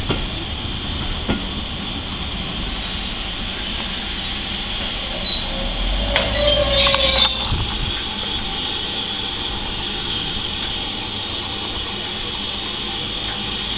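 Passenger train coaches rolling past and away along the track, a steady rumble of wheels on rail, with a brief louder burst of noise a little past the middle.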